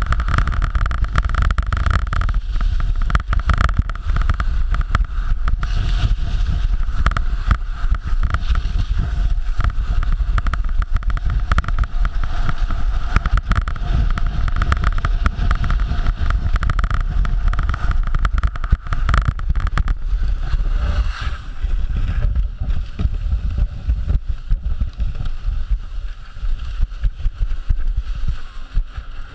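Skis hissing and scraping over packed snow, with wind buffeting a boot-mounted camera's microphone, on a steady downhill run. About three-quarters of the way through the noise drops and turns patchy as the skier slows on the flat run-out.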